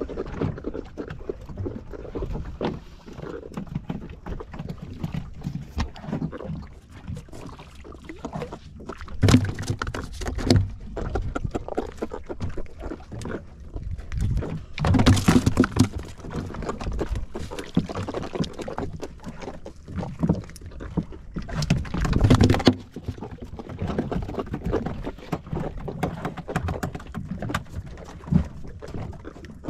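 Sounds aboard a small fishing boat at sea: water against the hull with knocks and clatter from handling on board. Three louder noisy spells come about 9, 15 and 22 seconds in.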